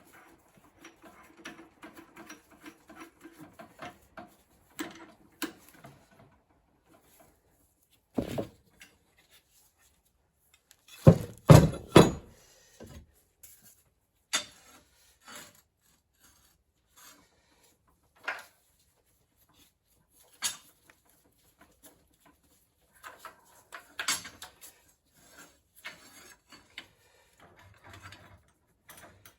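Scattered clicks, knocks and rubbing of metal tools and parts being handled, with a louder cluster of knocks about eleven to twelve seconds in, as a drill bit is fitted into the drill and the work is set up.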